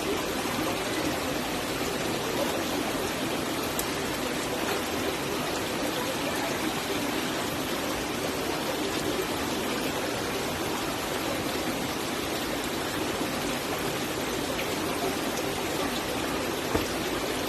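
Steady rush of water from a stream and waterfall, an even unbroken noise with no lulls.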